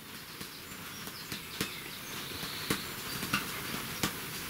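A hand moving among cards laid on a cloth-covered table, making a few faint, light clicks and taps, about four over a few seconds, over a steady low hiss.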